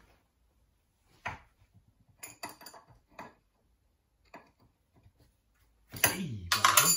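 Light metallic clicks and knocks from the front tie bar nut of a classic Mini being worked loose under the wheel arch. Near the end comes a louder creaking sound, about a second long, that wavers up and down in pitch.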